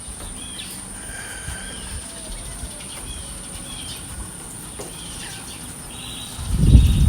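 Birds chirping in short repeated calls over a steady high-pitched insect drone. Near the end, loud low rumbling gusts of wind on the microphone take over.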